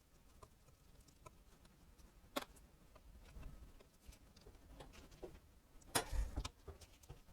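Hand tools and small metal engine parts clicking and tapping during engine dismantling: scattered light ticks, a sharper click about two seconds in, and a louder clatter near the end.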